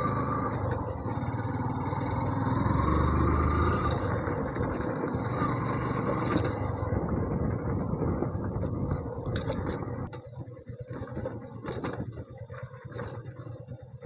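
Yamaha FZ V2 motorcycle engine running, its pitch rising about two seconds in. About ten seconds in the engine sound drops away, leaving scattered clicks and knocks.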